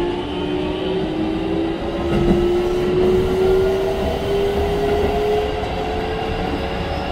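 Keikyu 1500 series train's Toyo IGBT VVVF inverter and traction motors, refitted from field-chopper control, heard inside the car as the train accelerates. Several whining tones rise slowly in pitch over the rumble of the wheels on the rails.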